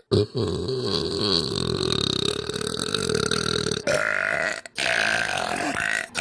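A girl burping: one burp nearly four seconds long, then two shorter burps.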